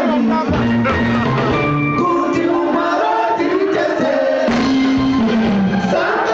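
Live Zimbabwean dendera band music: a male lead singer over backing vocals, electric guitar and bass.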